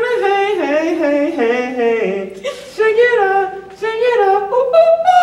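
A single voice singing a song's lines unaccompanied, in held notes that step up and down with short breaks between phrases.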